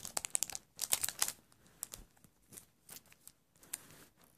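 Plastic packaging crinkling and clicking as hands unwrap a trading card in a clear hard plastic holder: a dense run of crackles in the first second or so, then scattered light clicks.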